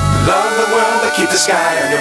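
Background pop music with a melodic line. The bass and beat drop out shortly after the start, leaving only the higher melody.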